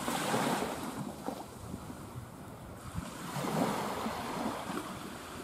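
Sea waves washing onto the shore, swelling in two surges a few seconds apart.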